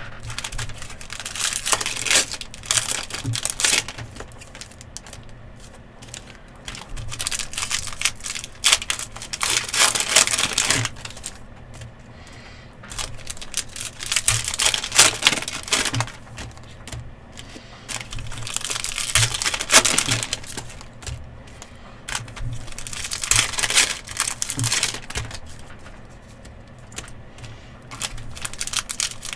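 Plastic and foil trading card pack wrappers crinkling and tearing, with rapid clicking of cards being handled, in several bursts of a few seconds each.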